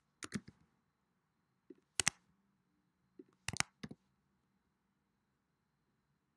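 Computer keyboard keystrokes: a few sharp key clicks in three short clusters spread over the first four seconds.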